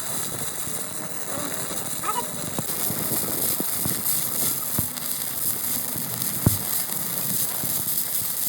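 Workshop noise from heavy metal repair: a steady high hiss that grows louder a few seconds in, with scattered sharp metal knocks, the loudest about six and a half seconds in.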